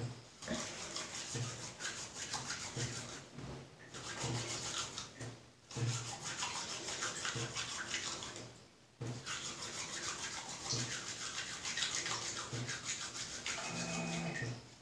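Wet hands rubbing together in quick scrubbing strokes, working a tree-derived natural soap into a lather; the rubbing pauses briefly a few times.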